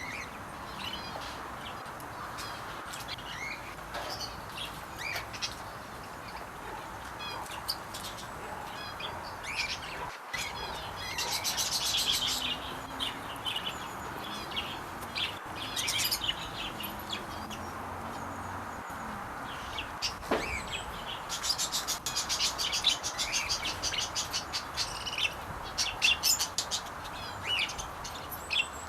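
Aviary birds chirping and calling, a steady scatter of short high chirps, with two stretches of rapid trilling about eleven seconds in and again from about twenty-one seconds. A steady hiss sits underneath.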